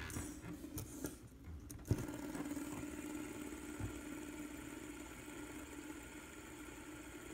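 Fidget spinner set spinning on a wooden table with a sharp click about two seconds in, then a steady whirring hum as it spins, slowly fading.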